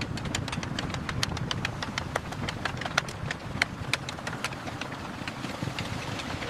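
Work-site ambience: a steady low rumble like running machinery under a quick, irregular patter of light, sharp taps, several a second.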